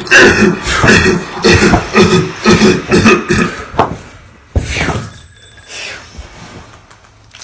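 Short, forceful vocal bursts like grunts or coughs, about two a second, then a single sharp thump about four and a half seconds in, after which it goes quieter.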